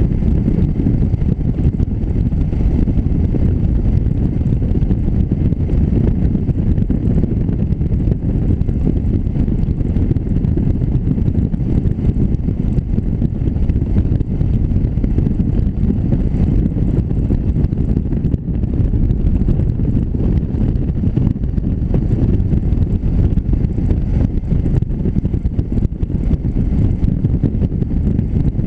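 A motorcycle riding at a steady speed, heard as a loud, steady low rumble of wind buffeting the microphone of a camera mounted on the bike.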